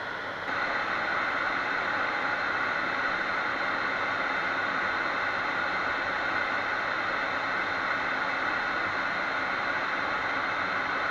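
Steady rushing hiss of airflow and engine noise inside a fighter jet's cockpit in flight, growing louder suddenly about half a second in and then holding even.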